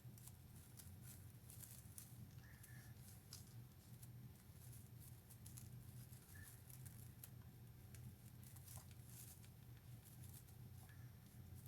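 Near silence: a low steady hum with faint, scattered ticks and rustles from small craft materials being handled.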